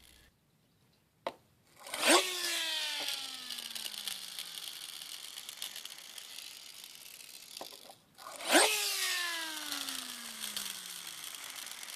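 The wheels of a McDonald's Pikachu push-along toy are revved twice against a table, and its flywheel whirs. Each time the pitch rises quickly, then falls as a long whine while the wheels spin down, with a scratchy rasp over it.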